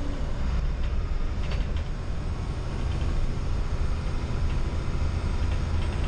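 Inside a moving local bus: steady, deep engine and road rumble, with a few faint rattles.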